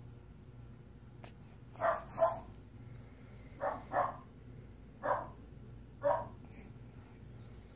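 A dog barking six short times: two quick pairs, then two single barks about a second apart, the first pair loudest.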